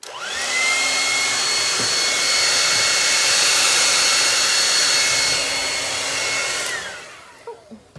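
Handheld hair dryer switched on and running: a steady rush of air with a high motor whine that climbs as it spins up. Near the end it is switched off, and the whine glides down as the motor winds down.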